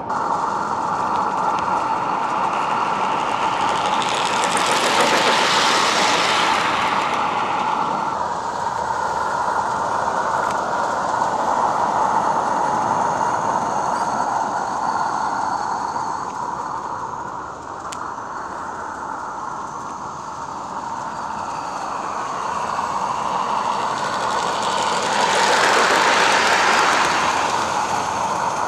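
Gas-fired live-steam garden-railway locomotive, an Accucraft Edrig 0-4-0, hissing steadily. There are two louder rushes of steam, one a few seconds in and one near the end.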